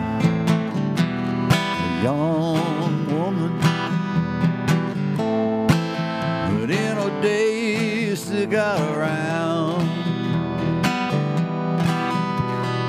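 Country-style band music with no vocals: strummed acoustic guitar under a wavering, sliding lead melody, with regular percussive hits.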